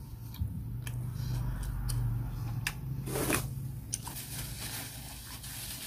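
Chewing on chicken with small wet mouth clicks. From about three seconds in comes a soft crackly rustle, a paper tissue being handled at the mouth.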